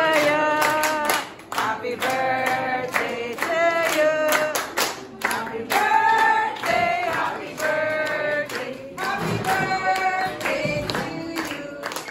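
A group of people singing a birthday song together, with hands clapping along in time.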